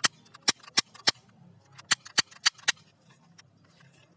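Toy gun firing: two quick runs of about four sharp cracks, roughly a third of a second apart, with fainter clicks in between.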